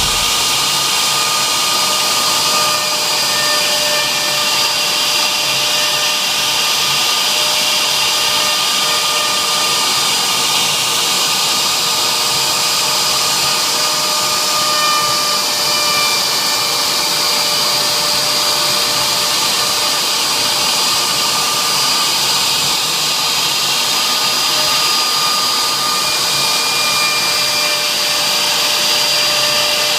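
CNC router spindle running steadily while engraving: an even, loud rushing noise with several steady high-pitched whining tones.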